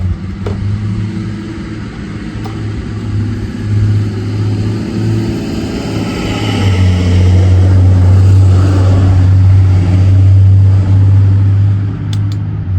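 A motor vehicle's engine running close by: a steady low drone that grows much louder about halfway through, with a few light clicks of handling over it.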